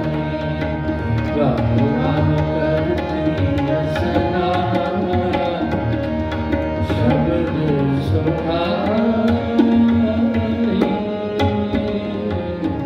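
Sikh kirtan music: two harmoniums hold sustained chords while a tabla pair keeps a steady rhythm of sharp strokes.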